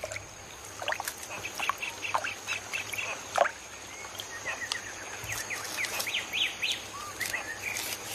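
Wildlife ambience: many short chirping and squeaking animal calls in quick succession, with a faint steady high-pitched whine underneath.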